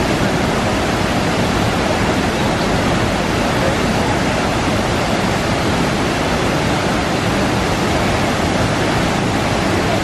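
Large waterfall and the river below it rushing: a loud, steady roar of falling water that holds unchanged throughout.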